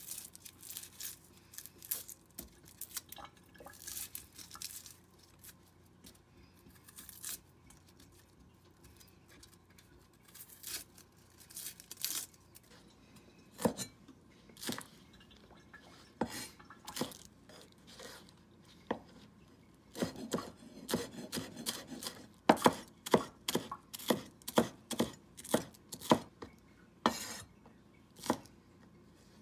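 A knife peeling an onion, with faint scattered scrapes and clicks. In the second half comes a knife chopping green onions on a wooden cutting board, a steady run of sharp knocks about two a second, the loudest sounds here.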